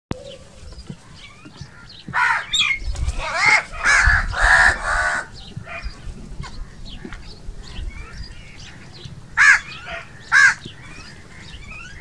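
House crow cawing: a run of about six harsh caws between two and five seconds in, then two single caws about a second apart near the ten-second mark. Faint chirps of small birds sound in the background.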